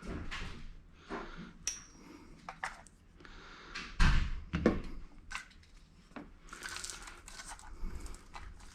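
Handling noises from fitting batteries into an RC car's battery tray: scattered plastic clicks and knocks with rustling, and a heavier thump about four seconds in.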